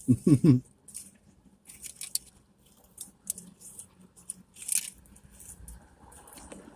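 Close-up eating sounds: biting and chewing food, with scattered short crackly noises.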